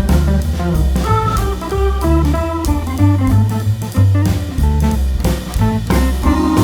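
Background music, an upbeat jazzy instrumental with drums, bass and guitar.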